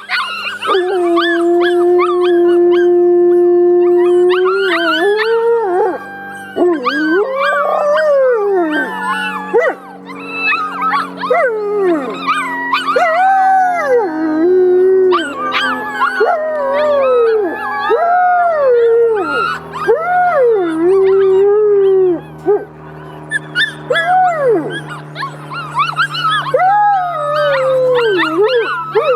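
Alaskan Malamutes howling together: one long, steady, lower howl near the start, then many short howls that rise and fall, overlapping, from six-week-old puppies learning to howl with their sire.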